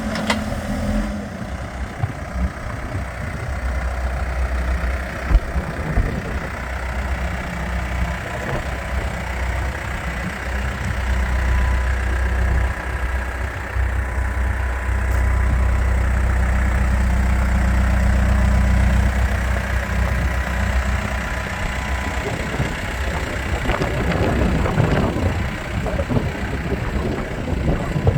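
Case 580 Super M backhoe's diesel engine running, the low drone swelling and easing as the revs change, loudest a little past the middle.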